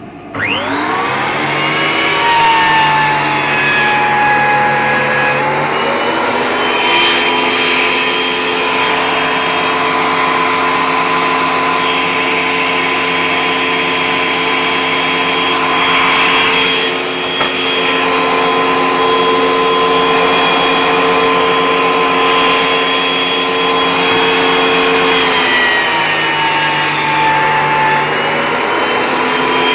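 Benchtop thickness planer switched on, its motor and cutterhead whining up to speed within about two seconds, then running steadily with a dust extractor. The tone changes for a few seconds shortly after the start and again near the end, as a board passes through the cutters taking about a millimetre off.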